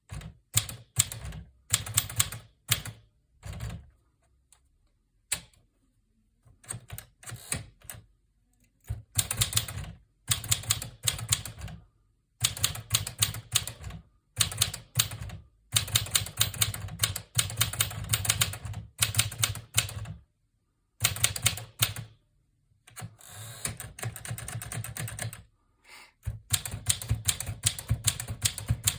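1954 Smith-Corona Super manual typewriter being typed on: quick runs of sharp keystroke clacks broken by short pauses.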